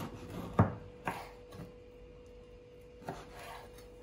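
Knife cutting into a baked apple cake on a wooden board: a few sharp knocks, the loudest a little over half a second in, with light scraping between them.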